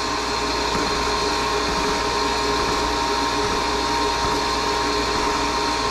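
Wet ring dental vacuum pump running steadily, a constant motor hum and air hiss with a held whine. It is pulling weak suction, about 9 to 10 inches of mercury where a healthy pump sits around 12.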